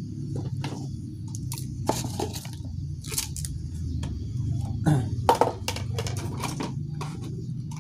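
Irregular crackling and clicking of thin plastic containers being handled, over a steady low hum.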